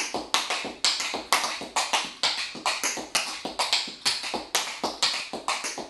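Tap shoes striking a concrete floor in a quick, steady run of brush-heel-toe steps, about four or five crisp taps a second.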